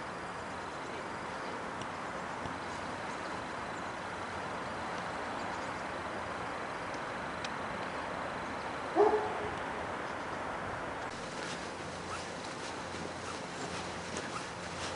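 A dog barks once, short and loud, about nine seconds in, over a steady background noise. Footsteps on the leaf-covered path tick faintly in the last few seconds.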